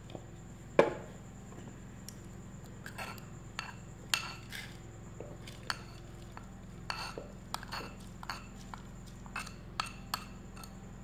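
Metal spoon clinking and scraping against a ceramic bowl and a small glass jar as a ground spice mix is spooned into the jar: scattered sharp clinks with a short ring, the loudest about a second in.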